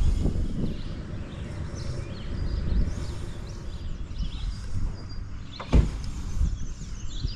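Low rumbling movement and handling noise from a climber working on a tower, with one sharp knock about six seconds in.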